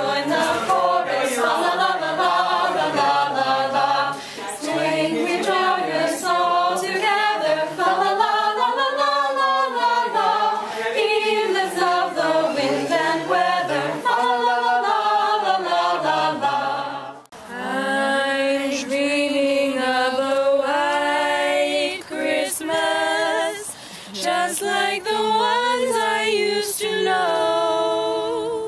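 A small group of carolers singing together a cappella. About 17 seconds in the singing cuts off abruptly and a different a cappella passage with long held notes starts.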